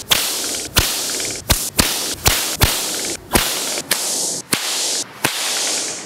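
A bullwhip cracked again and again: about ten sharp cracks at uneven spacing, with a steady hissing rush between them. Each crack is the whip's tip breaking the sound barrier, a small sonic boom.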